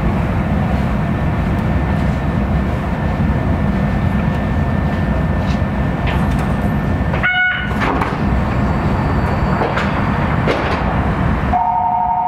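Kitakyushu Monorail car running along its track, a steady rumble of its rubber-tyred running gear heard from inside the car. About seven seconds in there is a brief pitched tone with a short drop-out. Near the end the rumble falls away and a steady two-note electronic tone begins.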